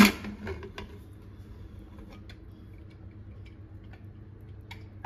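A sharp metallic clank as the aluminium lid of a Hawkins Classic pressure cooker is unlocked and pulled free, the cooker already vented of its steam. A few faint light ticks follow.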